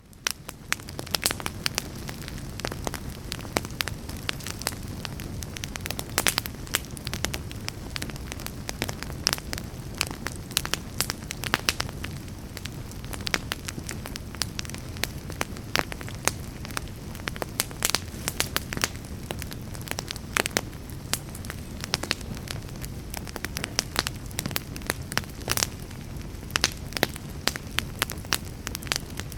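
Wood fire burning in a fireplace: a steady low rush of flames with frequent sharp crackles and pops from the burning logs. It fades in at the start.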